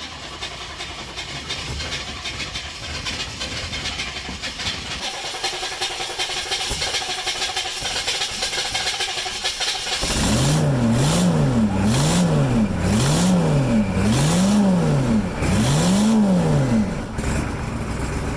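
1983 Chevy Suburban's diesel V8 cranking on the starter for about ten seconds, then catching and running. It is revved about six times, each a rise and fall in pitch, and settles to a steady idle near the end.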